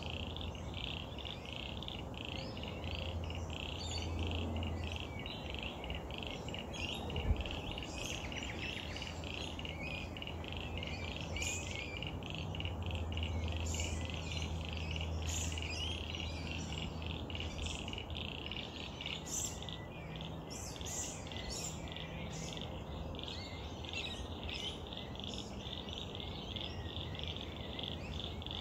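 A chorus of frogs by a pond, calling in a rapid, steady pulsing trill, with birds chirping over it now and then. A low rumble comes and goes in the background, and there is a single sharp knock about seven seconds in.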